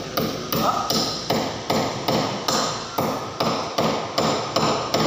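Hand hammer driving a nail into a wall, steady repeated blows about two and a half to three a second, each with a brief ring.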